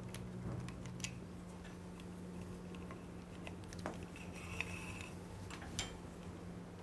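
Scattered faint clicks and taps of hand handling as a replacement speed sensor and its cable are fed in at a motorcycle's rear brake caliper bracket, with a brief faint squeak past the middle, over a steady low hum.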